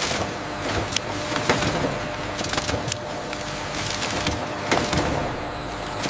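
Factory machinery running with a steady hum and a few steady tones, with irregular clicks and knocks over it.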